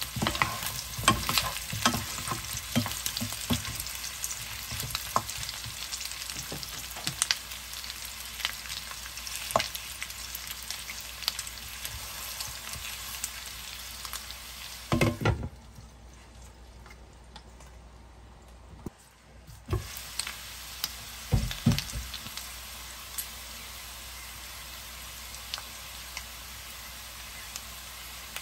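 Sliced potatoes and sausages sizzling as they fry in a frying pan, with a wooden spatula scraping and clicking against the pan as they are stirred. A few louder knocks come about halfway and again a few seconds later, and the sizzle drops away for a few seconds just past halfway.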